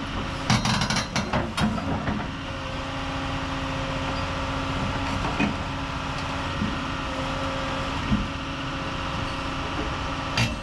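Heavy diesel engine running steadily, with a cluster of sharp clanks and knocks in the first two seconds.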